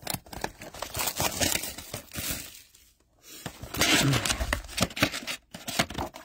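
Plastic shrink-wrap being torn and crinkled off a sealed trading-card hobby box, in two bouts with a short pause about three seconds in.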